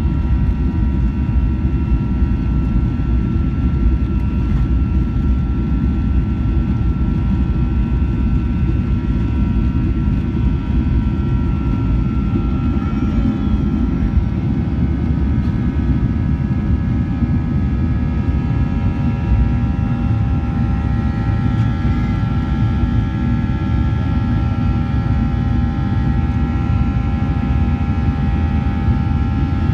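Boeing 737-800's CFM56-7B turbofan engines at takeoff thrust, heard from the cabin over the wing: a steady engine roar with several steady high whining tones above it, as the jet rolls down the runway, lifts off and climbs.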